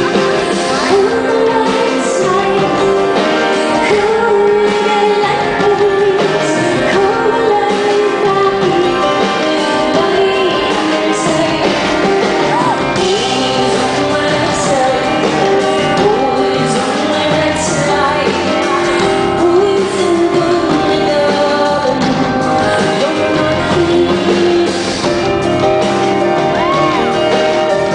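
Live pop-rock performance: a woman singing over instrumental backing, heard with the reverberation of a large hall.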